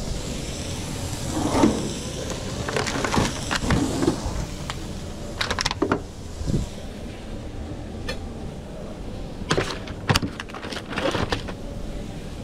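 Kitchen work sounds: scattered knocks, clicks and clatter of cooking over a steady low background hum.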